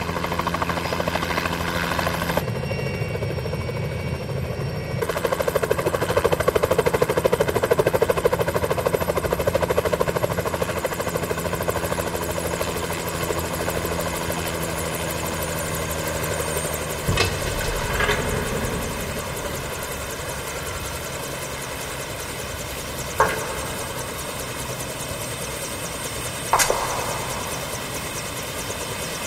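Helicopter running steadily with the even drone of its turbine and rotors. The sound grows louder in the first third, then settles lower in the second half. Four sharp knocks stand out over it in the latter half.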